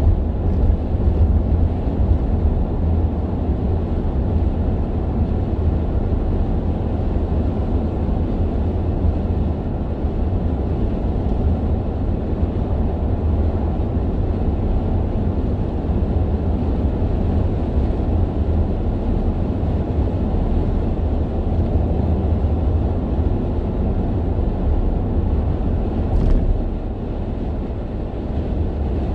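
Steady low road rumble inside a car cruising at highway speed: tyre and wind noise heard through the cabin. A single short click about 26 seconds in, after which the rumble drops slightly.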